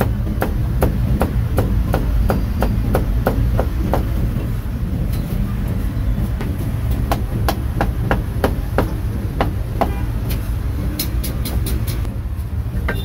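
Cleaver chopping meat on a chopping board: quick, evenly spaced chops about three a second, turning sparser and less regular about four seconds in, with a quick flurry near the end, over a steady low rumble.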